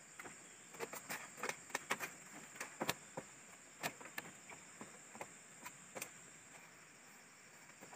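Irregular light clicks and cracks of split-bamboo floor slats shifting and knocking as a barefoot person moves about on them and handles a bamboo strip, thinning out after about six seconds. A steady high insect buzz runs underneath.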